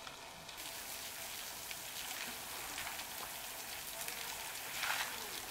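Steady splashing of a water jet against an African elephant's trunk and the wet concrete floor, louder for a moment about five seconds in.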